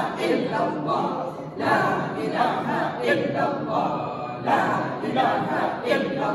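A group of voices chanting prayers together in unison, phrase after phrase without a break.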